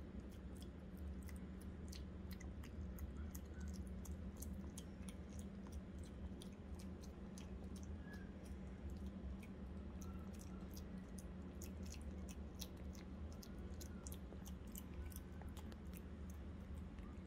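Maltese puppy chewing tomato: a dense, irregular run of small wet clicks and smacks from its mouth.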